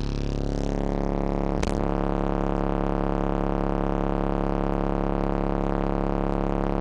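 AudioPipe TXX-BDC4-12 12-inch subwoofer in an SPL box playing a 35 Hz sine test tone, heard inside the van's cabin as a loud, steady drone full of overtones. A brief knock comes about a second and a half in.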